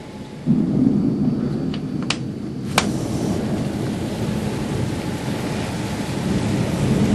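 Thunder from a heavy thunderstorm, starting suddenly about half a second in and rumbling on, with rain. A few sharp cracks in the first three seconds.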